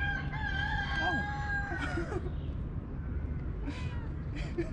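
A long, steady animal call held for about two seconds and falling away at its end, followed by a few short scratchy sounds near the end.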